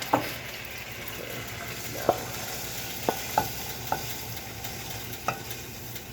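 Chicken pieces frying in a pan with a steady sizzle, and a cooking utensil clicking against the pan six times.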